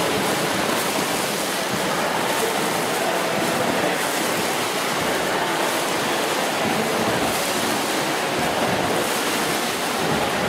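Swimmers splashing through butterfly strokes in an indoor pool, heard as a steady wash of water noise.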